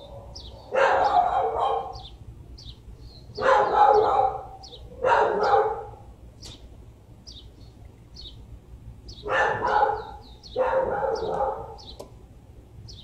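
Dogs barking in five bouts of about a second each, with small birds chirping faintly in between.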